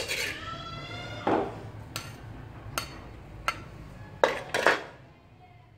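Metal spatula knocking and scraping in an empty metal wok: a ringing clang at the start, then about six more clanks spaced under a second apart, fading out near the end.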